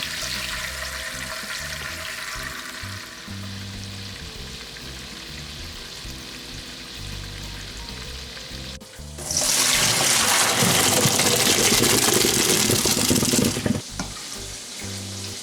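Chicken tenders frying in shallow oil with a steady sizzle, under light background music. After a cut about nine seconds in, a much louder rushing hiss lasts about four and a half seconds.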